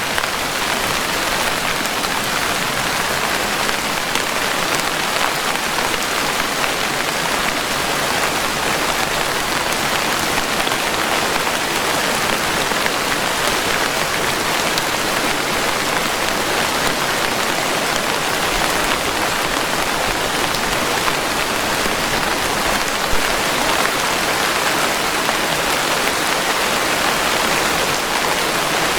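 Steady rain: a dense, even hiss of many drops falling without let-up.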